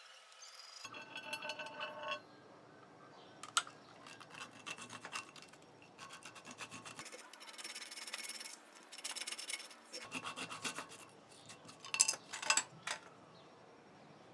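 Irregular rubbing and scraping strokes from hand work on a headphone, with a short squeak near the start and a few sharp clicks, the loudest about three-quarters of the way through.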